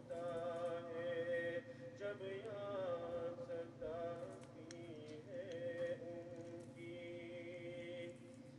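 Background music: a voice singing a slow chant, holding long notes that bend from one to the next, with no clear beat.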